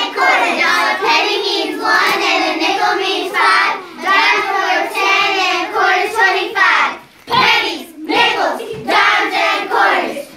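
A class of young children singing a song together, in near-continuous sung phrases with a couple of brief pauses for breath in the second half.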